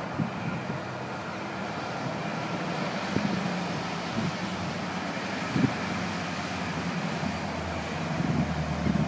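Diesel freight locomotives approaching, a steady low engine rumble that grows louder near the end, with a few faint knocks.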